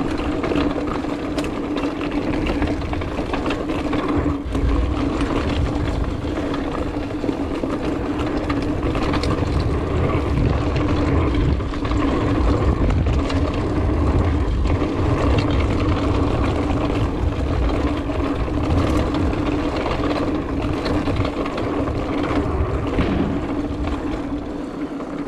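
2019 Trek Roscoe 8 hardtail mountain bike rolling fast down a dirt trail: a steady drone from the tyres and coasting drivetrain, with low wind rumble on the chest-mounted camera and scattered rattles and ticks as the bike goes over bumps. It fades near the end as the bike slows.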